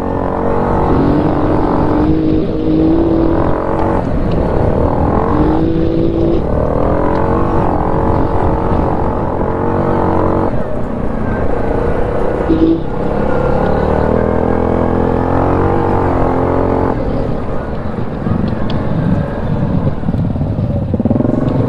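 ATV engine running on the move, its pitch rising and dropping back several times as the throttle is worked.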